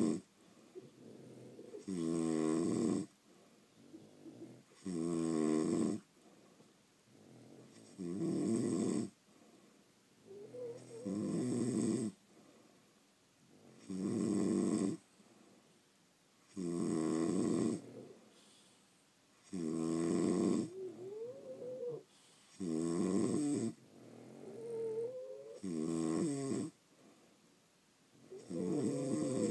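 Sleeping French bulldog snoring in a steady rhythm, one snore about every three seconds, with soft whistling glides in pitch between some snores. Snoring like this is typical of the breed's short, flat-faced airway.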